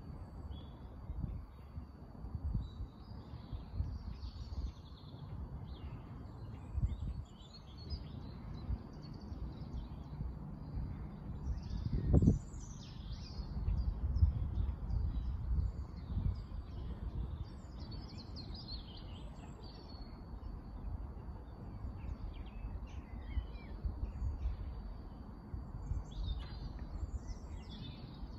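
Small birds chirping and calling over a gusty low rumble, with a faint steady high tone and a single thump about twelve seconds in.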